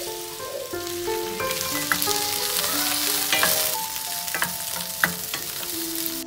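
Cut okra sizzling as it fries in oil in a stainless steel pan, stirred with a wooden spoon that knocks against the pan a few times.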